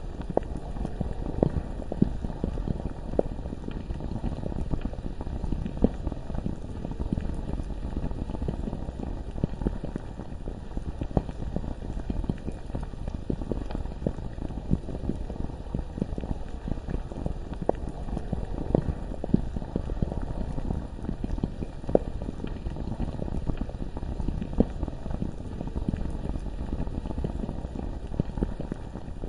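Thick, deep bubbling of lava: a steady low rumble with many small pops and bursts of bubbles, some louder than others.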